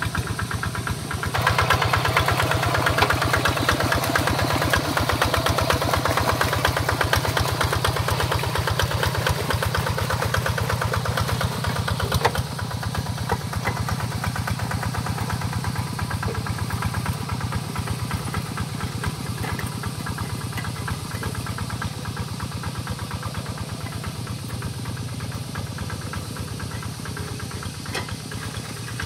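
Single-cylinder diesel engine of a two-wheel hand tractor running steadily under load as it pulls its cage wheels through paddy mud. It grows louder a second or so in, drops at about twelve seconds, then fades slowly as the tractor moves away.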